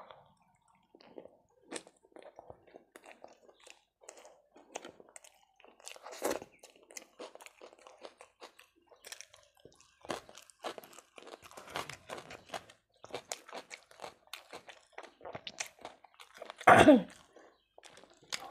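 Close-miked chewing of a mouthful of chicken kosha, with many small wet clicks and smacks of the mouth. Near the end there is one short, loud throat sound, much louder than the chewing.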